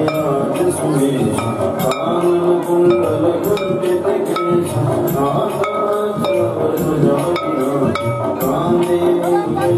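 Devotional music with singing and steady clinking percussion.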